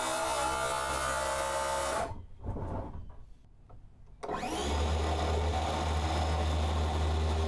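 DeWalt cordless circular saw cutting plywood. It runs steadily, stops about two seconds in, leaving only a few light knocks, then spins back up with a rising whine about four seconds in and runs steadily through the cut.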